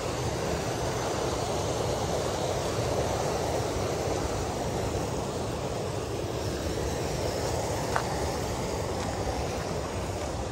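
Steady outdoor rushing noise with no pitch or rhythm, with a single short click about eight seconds in.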